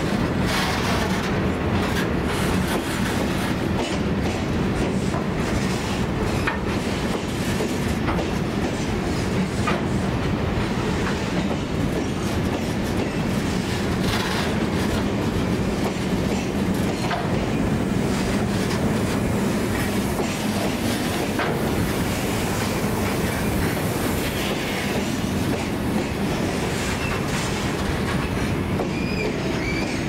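A train hauled by EMD diesel locomotives rolling steadily past at close range: a continuous rumble with repeated clicks as wagon wheels cross rail joints. Thin, high wheel squeals come in near the end.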